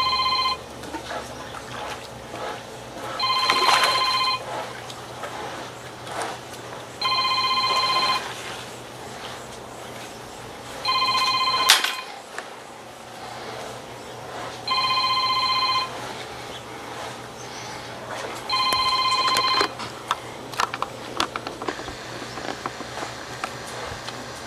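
An electronic telephone ringtone rings six times, each ring about a second long with roughly three seconds between, then stops a few seconds before the end. A sharp click comes about halfway through, and light clicks and knocks follow the last ring.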